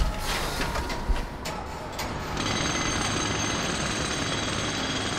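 Two dull thumps about a second apart as a man drops onto a bed. About two and a half seconds in, a steady mechanical din with high whining tones starts up and keeps going.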